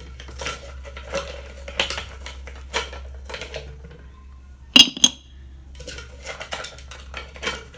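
A glass pot lid being set on a steel pot, then ice cubes knocking down onto the lid: a run of separate clinks and clunks, the loudest pair about five seconds in.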